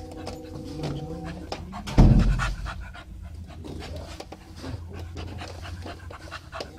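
A dog panting close to the microphone, quick irregular breaths, with one loud low thump about two seconds in.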